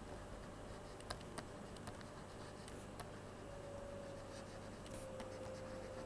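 Faint scratching and a few sharp taps of a stylus writing on a pen tablet.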